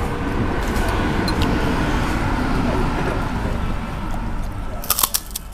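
Steady low rumble of road vehicles, slowly fading toward the end. A short clatter of sharp clinks about five seconds in, likely spoons on bowls.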